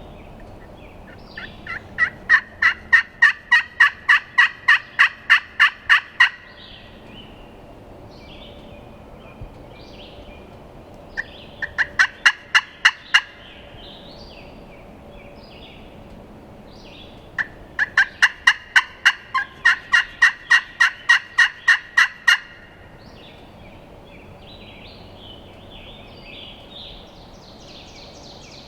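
A turkey call sounding three runs of sharp, evenly spaced yelps, about three or four a second. The first and last runs last about four seconds each, with a short run in between. It is calling to locate a gobbler and get it to answer.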